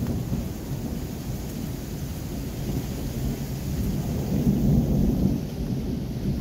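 Thunder rumbling low and continuously, swelling louder a little past the middle, over the steady hiss of heavy rain.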